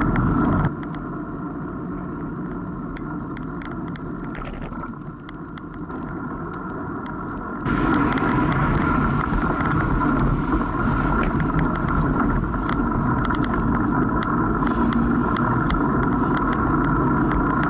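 Wind rushing over a bicycle-mounted camera's microphone, with the tyres running on the road and scattered rattling clicks from the bike. The rush drops quieter about a second in and comes back louder about eight seconds in.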